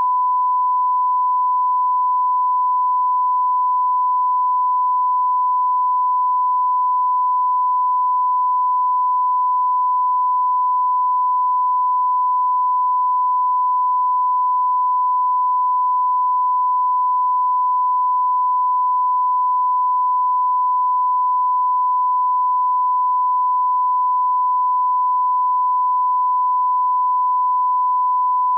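Steady 1 kHz reference tone, the line-up tone that goes with colour bars at the head of a broadcast tape, holding one unchanging pitch and cutting off abruptly near the end.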